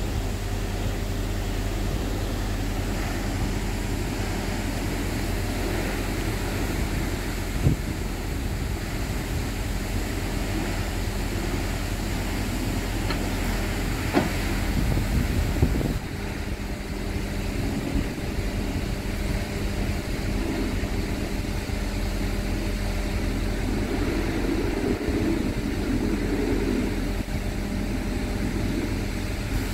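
A diesel truck engine idling steadily, with a few brief knocks.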